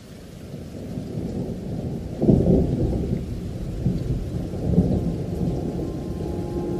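Thunder rolling in a rainstorm, a low rumble that builds over the first couple of seconds and swells loudest about two seconds in, with a smaller peak later. Background music starts to come in near the end.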